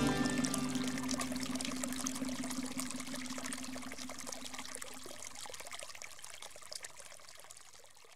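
Trickling water, fading out steadily, with a last held note of music dying away about halfway through.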